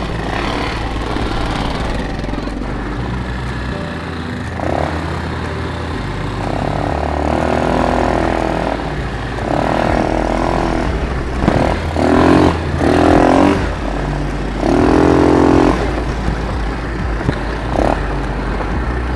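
ATV (quad bike) engine running as the quad is ridden along a muddy trail, a steady low rumble. Several loud held tones, each a second or two long, come over it in the middle.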